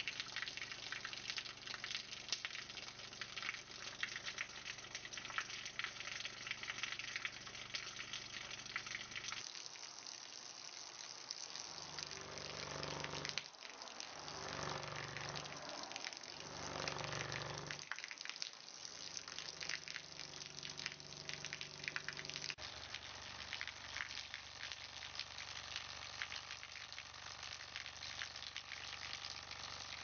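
Water trickling and splashing in a steady crackling patter. A low pulsing sound comes and goes about four times around the middle.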